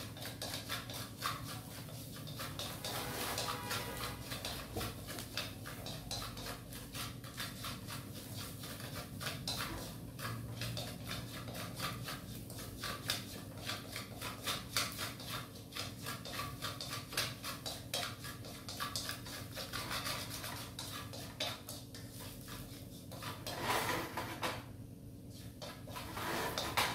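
Utensil stirring and scraping in a pan of garlic frying in oil, with many quick, irregular clicks of metal against the pan.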